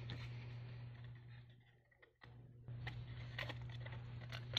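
Paper rustling and creasing as a sheet is folded and tucked by hand, with a few light clicks and taps near the end, over a steady low hum. The rustling and hum fade out about halfway through and come back a moment later.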